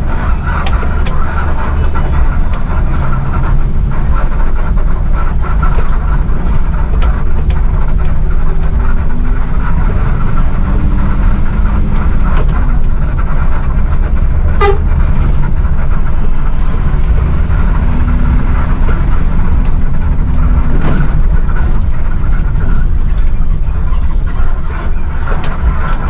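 Coach engine and road rumble heard from the driver's cab while driving on a rough, unpaved stretch, the engine note rising several times as it accelerates past trucks.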